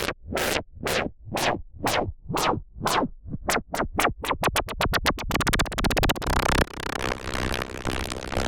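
Electronic music build-up run through a ShaperBox 3 build preset: repeated pulses, each with a falling filter sweep, come about twice a second and then speed up into a fast roll that blurs into a continuous wash about five seconds in.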